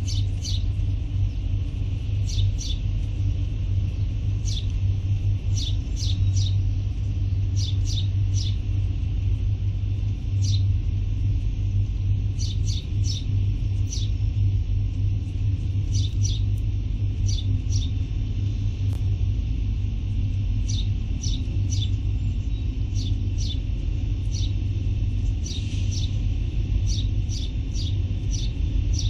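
A steady low rumble, with birds chirping in quick runs of two or three short calls every second or two.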